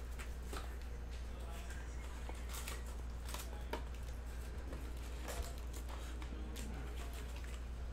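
Foil trading-card packs crinkling and rustling as they are lifted out of an opened cardboard retail box, with scattered short crackles and cardboard scrapes over a steady low hum.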